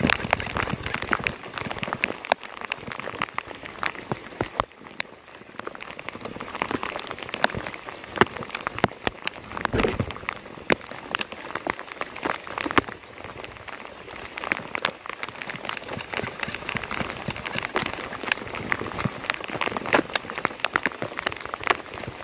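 Heavy rain falling, a steady hiss full of many sharp, irregular drop impacts.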